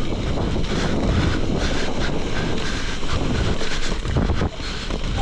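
Wind buffeting the microphone and gravel-bike tyres rumbling over a loose, sandy dirt road on a fast descent, with frequent small knocks as the bike rides over bumps.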